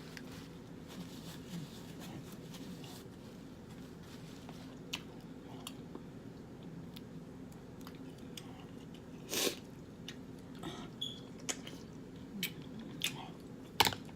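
Close-miked mouth sounds of someone eating seafood-boil food, shrimp among it, in sauce: chewing with scattered wet lip smacks and clicks, two of them louder, about nine and a half seconds in and near the end. A steady low hum runs underneath.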